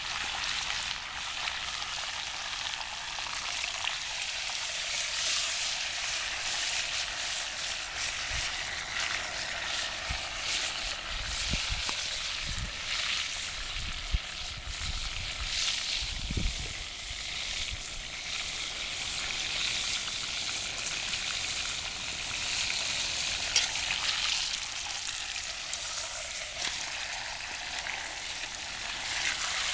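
Pork roast sizzling as it sears in a cast-iron Dutch oven over a campfire: a steady frying hiss, with a couple of sharp pops.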